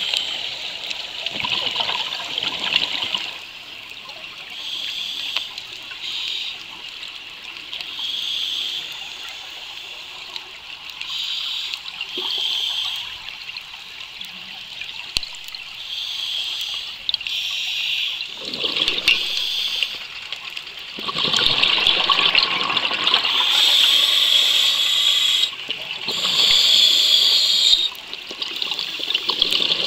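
Underwater bubbling and hissing: a scuba diver's exhaled bubbles from the regulator, heard through the camera housing, in irregular bursts every second or two. The bursts are louder and longer in the last third.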